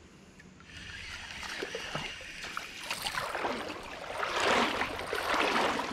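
Creek water splashing and sloshing, starting about a second in and growing louder in surges.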